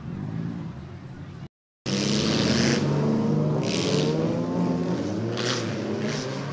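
Several race cars' engines running and revving on a muddy dirt track, their pitch sliding up and down, with bursts of hiss over them. The sound cuts out briefly about one and a half seconds in, then returns louder.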